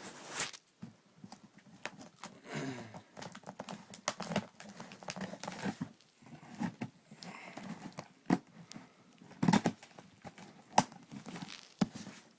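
Packaging being handled: crinkling and rustling with irregular clicks and knocks, the sharpest knocks about nine and a half and eleven seconds in.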